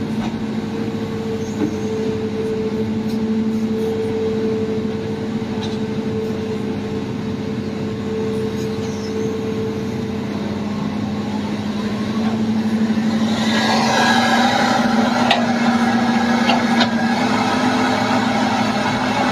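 Heavy diesel machinery running steadily with a constant engine drone. About two thirds of the way in, the engine revs up and grows louder, with rattling and a few sharp metallic clanks.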